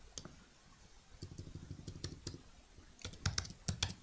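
Computer keyboard typing: a few scattered keystrokes near the start, then a quick run of sharp key clicks from about three seconds in.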